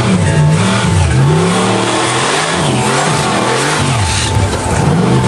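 Off-road 4x4 truck engine revving hard, its pitch rising and falling several times in quick succession as the driver works the throttle on a hill climb.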